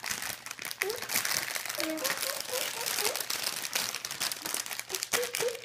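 Crinkling and rustling of clear plastic wrappers as packaged pastry rolls are handled and opened.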